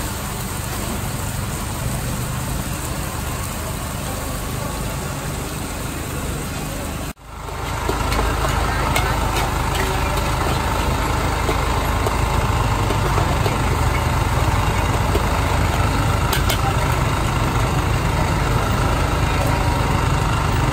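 For about the first seven seconds, fish in banana leaves sizzling on a hot griddle. After a cut, a char kway teow wok over a gas burner: the burner's steady roar with a deep rumble, and a few light clinks of the metal spatula against the wok.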